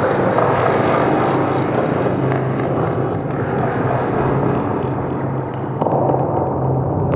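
Experimental ambient soundscape: a dense, rumbling wash of noise over a steady low drone, with a new layer coming in about six seconds in.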